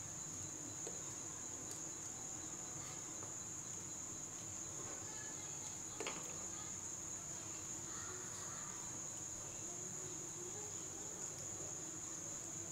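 A steady high-pitched insect trill that does not change, with a faint tap about six seconds in.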